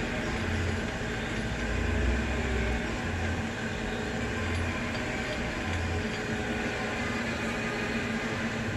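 Supermax LG1440 engine lathe running steadily with the spindle turning, a constant mechanical hum with a low, uneven rumble underneath.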